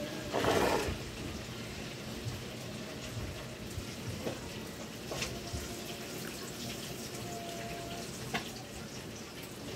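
Close-up wet mouth sounds of chewing rambutan flesh, with a short noisy burst about half a second in and a few faint clicks later, over a steady hiss.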